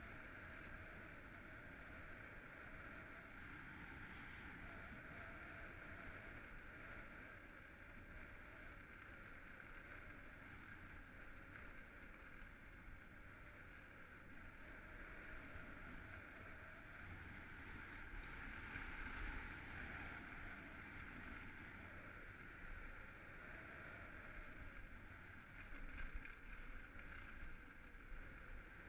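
Skis gliding steadily over groomed snow, a continuous quiet hiss with wind on the camera microphone, swelling a little about two-thirds of the way through and again near the end.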